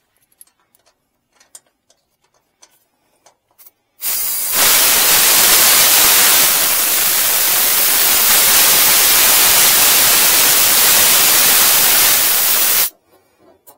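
Loud, steady hiss of R-410A refrigerant escaping from the mini-split's service-port Schrader valve while the hose adapter is only partly threaded on. It starts about four seconds in and cuts off suddenly some nine seconds later, once the fitting is tightened down.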